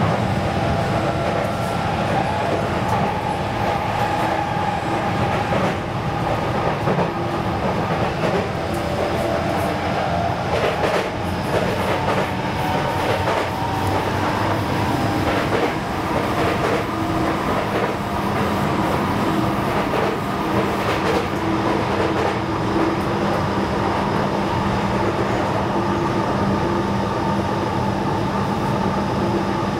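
Sotetsu 20000 series electric train running at speed, a steady rumble with a faint whine that drifts a little in pitch. A run of clicks from the wheels crossing rail joints comes in the first half.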